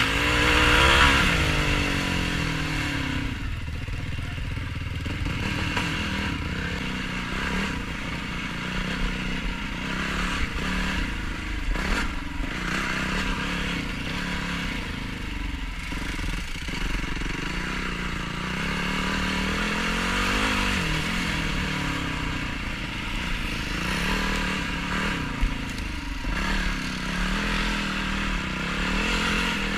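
Yamaha YFZ450R quad's single-cylinder four-stroke engine, its revs rising and falling over and over as it is ridden off-road, with a few knocks and clatter from the machine over the terrain.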